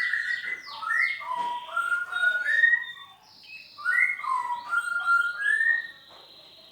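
A songbird singing a varied song of whistles, slurred glides and rougher notes, in two runs with a short pause about three seconds in.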